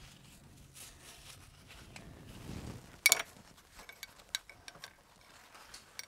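Faint low hum and rumble, then a sharp click about halfway through followed by a scatter of lighter clicks and taps, like small objects being handled.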